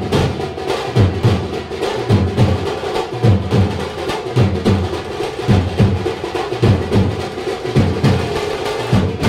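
Drum-led music with a steady beat: deep drum strokes, often two close together, repeating about every half second or so over a busier mix.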